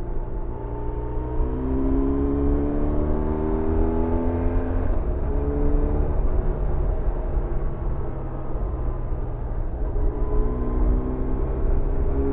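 BMW R1100RT's air- and oil-cooled boxer twin running under way, heard from the rider's seat with wind rush over the windscreen. Its pitch rises slowly as the bike picks up speed, about two seconds in and again near the end.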